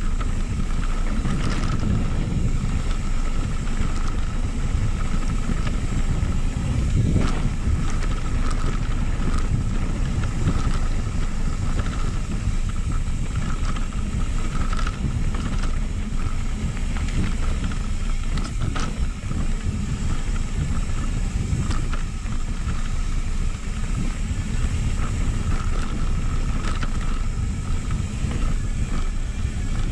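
Mountain bike rolling down a dirt trail: steady tyre rumble and wind buffeting the camera microphone, with a few brief knocks and rattles over bumps.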